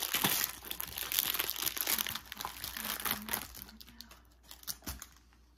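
Plastic packaging crinkling as it is handled and pulled open. Busy at first, it thins out after about three and a half seconds to a few faint rustles.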